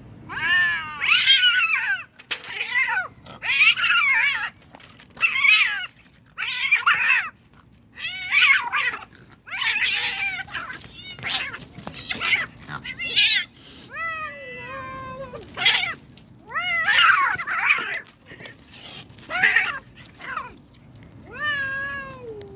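Two cats in a fighting standoff, yowling and caterwauling: a string of drawn-out, wavering howls of about a second each, some sliding down in pitch, the sound of a territorial cat fight.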